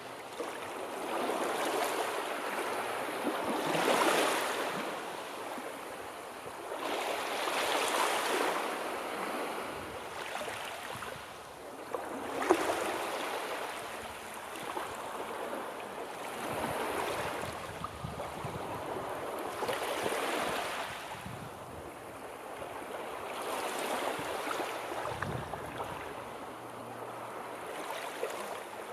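Sea waves washing in and breaking, swelling and falling away about every four seconds, with one brief sharp sound about twelve seconds in.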